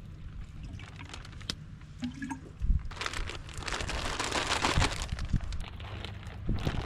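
Scattered sharp clicks and a few knocks, then a wave washing up the shore for about three seconds midway.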